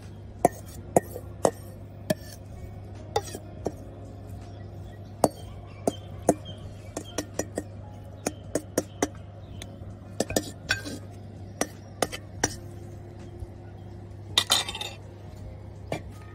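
A metal spoon clinking and scraping against a stainless steel mixing bowl while beef salad is scooped out, in many sharp, irregular clinks. A cluster of louder clinks comes near the end.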